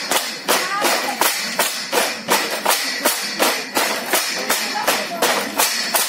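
Bamboo poles of a bamboo dance being clapped together and struck on the ground in a steady rhythm, about three sharp clacks a second.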